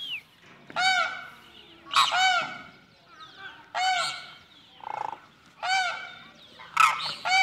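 Caged game bird calling: loud, repeated arching calls every second or two, some in quick pairs.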